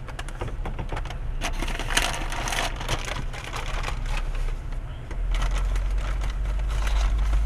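Paper takeout bag crinkling and rustling as it is handled, heard from inside a car cabin. About five seconds in, a low engine and road rumble rises as the car pulls away.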